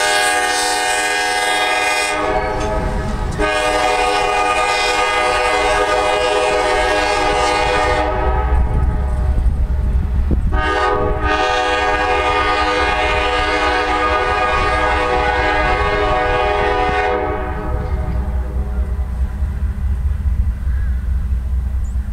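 A pair of CSX GE diesel locomotives running light, the horn sounding a chord in long blasts: one ends about two seconds in, a long blast follows, and after a brief break a second long blast, which stops well before the end. A steady low diesel rumble runs underneath throughout.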